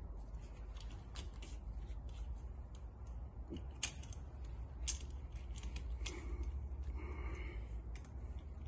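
Small metal parts being handled as a 3D printer's extruder is fitted to its metal mounting plate and an Allen key works a bolt: scattered small clicks and taps, with a little scraping about six seconds in. A steady low hum runs underneath.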